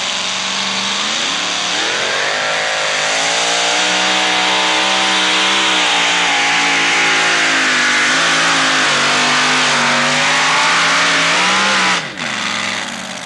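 Two-wheel-drive pulling truck's engine at full throttle, dragging a weight-transfer sled. The revs climb sharply about a second in, hold high and waver for about ten seconds, then fall away sharply near the end as the pull ends.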